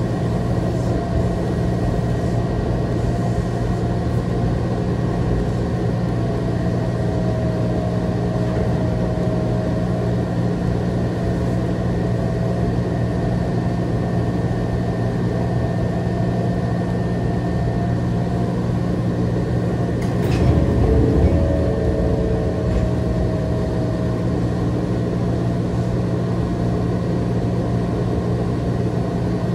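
Cabin of a small electric commuter train slowing into a station and standing: a steady low hum with a few fixed whining tones from the train's equipment, and a short knock followed by a brief rumble about twenty seconds in.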